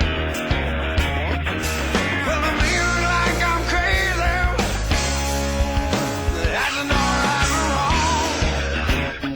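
Rock music with a steady beat, bass, guitar and a singing voice.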